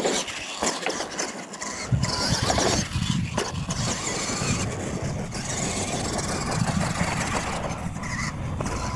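Radio-controlled monster truck driving on a dirt track, with its motor and gears whining as the throttle comes on and off and its tyres running over the dirt.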